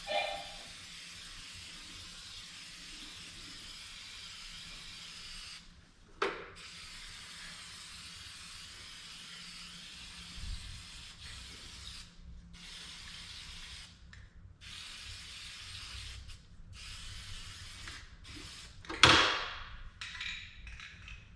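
Aerosol spray paint hissing in long bursts with short pauses between them. A sharp knock comes about six seconds in, and a louder one about nineteen seconds in.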